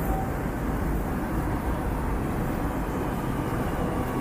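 MTR South Island Line train pulling into the station behind platform screen doors: a steady rumble, with a faint whine from its Alstom IGBT-VVVF traction motors coming in near the end as it brakes.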